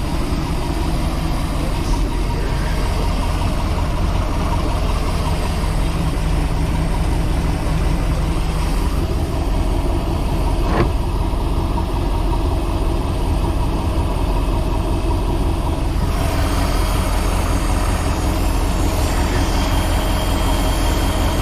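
Inboard boat engine idling steadily, heard close up from the open engine hatch, with one brief click about halfway through.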